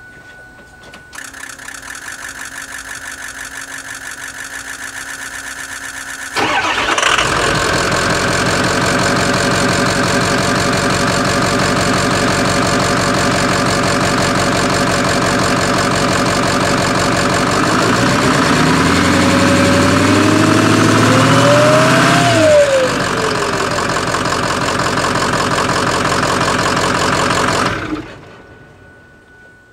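2005 Ford 6.0L Power Stroke turbo-diesel V8 being cranked by the starter for about five seconds before it catches, then running loudly. About two-thirds through, the engine speed rises briefly and drops back, and the engine is shut off near the end. The owner's complaint is a misfire.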